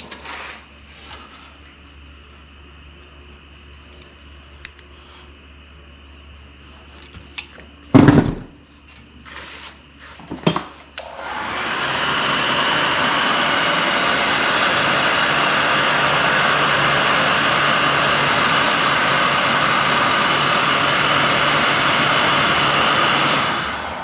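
Electric heat gun blowing steadily for about twelve seconds, starting about halfway through and shutting off just before the end. Earlier there is a single sharp click about eight seconds in.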